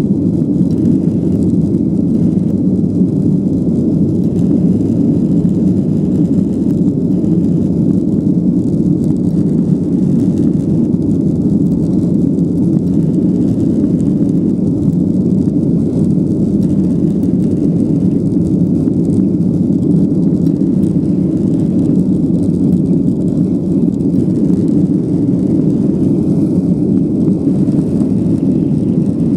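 Boeing 737-800's CFM56-7B turbofan engines at takeoff thrust, heard from inside the cabin, with the airliner rolling down the runway: a loud, steady, deep rumble.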